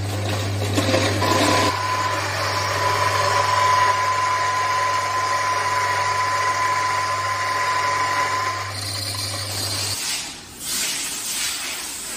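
Small turmeric powder milling machine running: a steady low electric hum under a grinding whir, with a thin high whine held through the middle for several seconds. The hum cuts off about ten seconds in, leaving a few seconds of softer, uneven noise.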